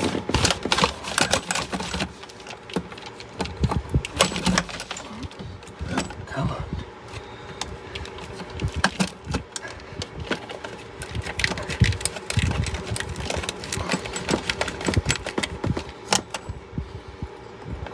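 Sheet-metal inverter/charger case and its heavy wiring being handled: irregular clanks, knocks and scraping, with rustling and clicking of wires being pulled.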